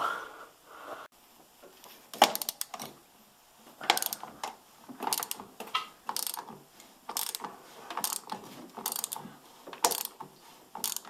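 Ratchet wrench clicking in short strokes, about one a second starting about two seconds in, as it backs off the axle nut on a snowmobile's bogey wheel to slacken the track tension.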